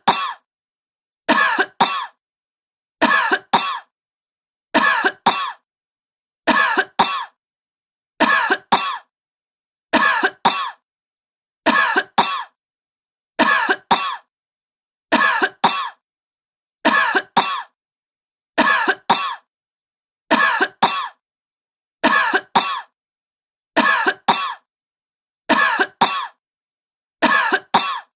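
A woman coughing from illness, a quick double cough repeated at even intervals about every second and three quarters, with dead silence between.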